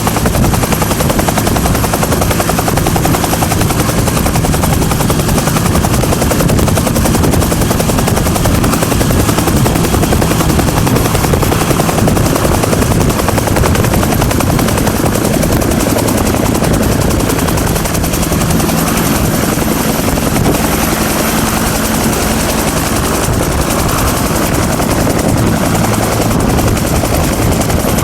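Bell UH-1 Huey helicopter running, its two-bladed main rotor beating in a fast, regular rhythm over the steady sound of its Lycoming T53 turbine. The sound stays loud and even throughout.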